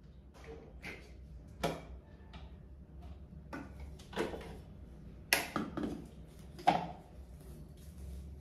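Handling knocks and clanks of a stainless-steel mixer-grinder jar: the lid is taken off and the jar is lifted off the motor base, a handful of short, sharp knocks, the loudest about five and seven seconds in.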